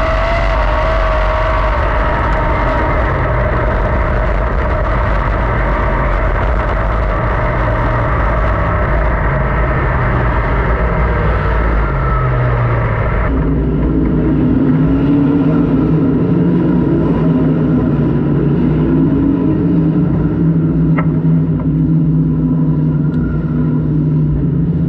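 A 410 sprint car's methanol V8 heard from the onboard camera at racing speed. About halfway through it drops abruptly to a low, steady running note as the car comes off the track into the pits.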